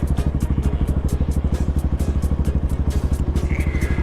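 Bashan 250 dirt bike engine running steadily while riding, with an even, rapid pulsing beat.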